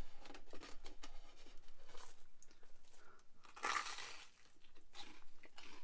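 Crisp toasted sandwich crunching as it is picked up and bitten into, with one louder crunch of the bite a little past halfway, then chewing.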